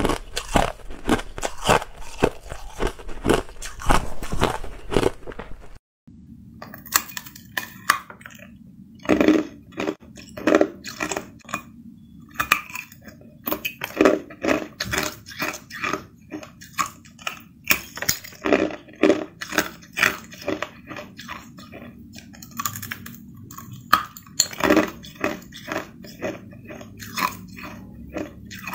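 Close-miked biting and chewing of hard clear ice: dense, sharp crunching and cracking strokes, several a second. About six seconds in the sound cuts to a second bout of ice crunching, now with a steady low hum underneath.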